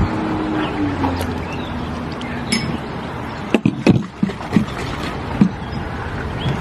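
Steady outdoor background noise like distant traffic, with a few short clinks and knocks about halfway through from the metal wire roasting rack being fitted and clipped around a whole pig.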